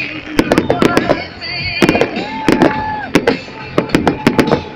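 Fireworks display: a rapid, irregular series of sharp bangs and crackling bursts, many close together, from shells exploding overhead.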